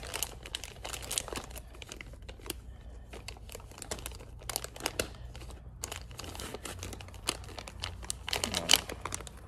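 Plastic packaging crinkling and rustling as it is handled, in many quick irregular crackles, with some tearing; near the end a wipe is pulled from a soft pack of antibacterial wipes.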